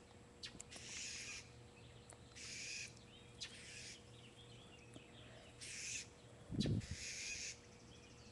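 Blue jay scolding a cat: five harsh jeer calls, each under a second, repeated every second or two, the alarm and mobbing call a jay gives at a predator. A brief low thump about two-thirds of the way through.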